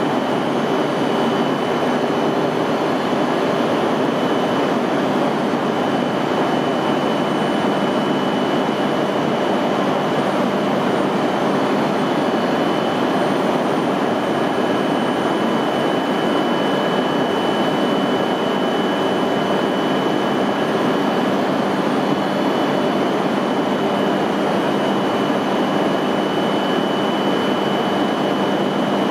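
E5 series Shinkansen train humming at the platform: a steady rushing hum with a faint high whine running through it.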